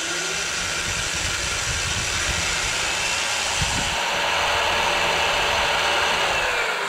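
Electric drill running steadily with an eighth-inch bit, drilling out a rivet in a small metal bracket held in the hand. Its pitch sags slightly near the end.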